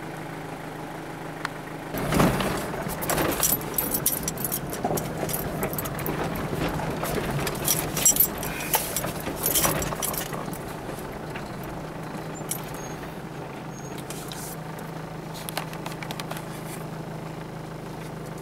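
Mitsubishi Montero 4x4 engine running steadily, heard from inside the cab. About two seconds in it gets louder as the vehicle moves off over a rough track, and irregular clinks and rattles from loose things in the cab join it.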